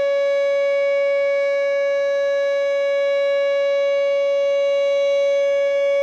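Whelen WPS-2910 electronic outdoor warning siren sounding a loud, steady tone that holds one pitch without rising or falling, the alert signal of its monthly test.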